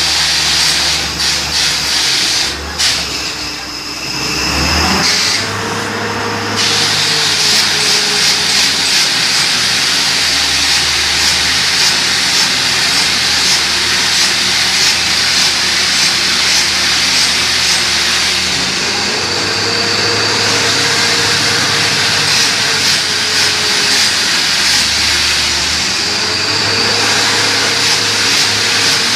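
Borewell drilling rig running: a steady engine drone under a loud hiss, with a fast, even ticking running through it after the first several seconds.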